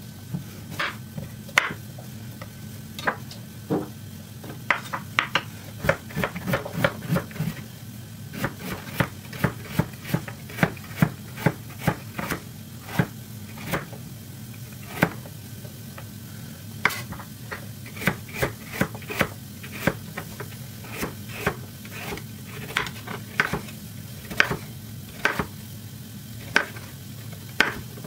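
Chef's knife slicing carrots into rounds on a wooden cutting board: a long run of sharp knocks of the blade on the board, about two to three a second, with a few short pauses.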